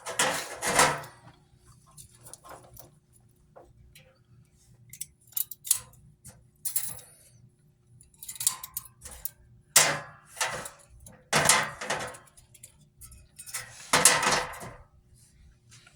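Safety wire being twisted and routed around aircraft nuts: irregular short metallic clinks, rustles and scrapes every second or so, the loudest about ten and fourteen seconds in.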